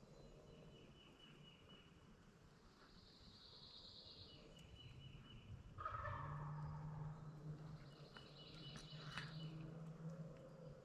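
A distant wild turkey gobbler gobbling from the roost about six seconds in, with a rapid high songbird trill before and after it.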